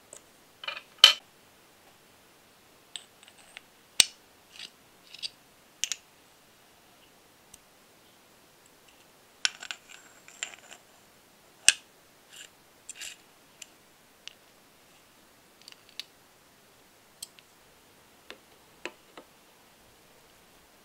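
Close-up clicks, taps and light scrapes of small metal model-engine parts being assembled: a hex key working in small screws and a small electric motor with a gearbox being handled and fitted. The sounds are isolated and sparse, with a few sharp metallic clicks standing out: the loudest about a second in, others near four seconds and near twelve seconds.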